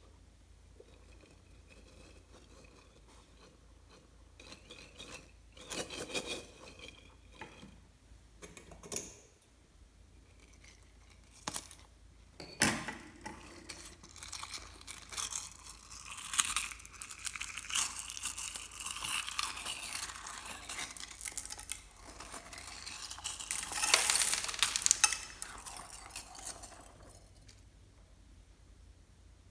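Clear slime being handled and stirred, with scattered clicks and knocks from tools or containers, then a long stretch of sticky crackling as the slime is worked, loudest near the end.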